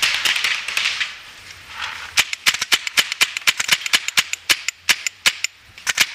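Paintball marker firing a rapid string of sharp shots, about six a second, starting about two seconds in and pausing just before the end.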